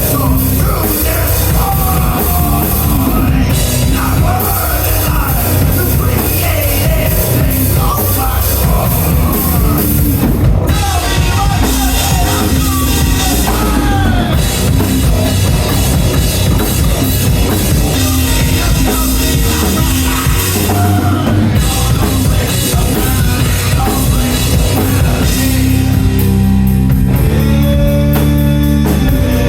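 Loud rock music with a driving drum kit beat and distorted guitars, running continuously.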